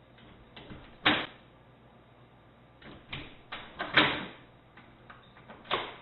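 Wood-framed glass door knocking and rattling as a cat jumps at it from outside, pawing at the lever handle. A series of knocks, the loudest about a second in and about four seconds in, with another near the end.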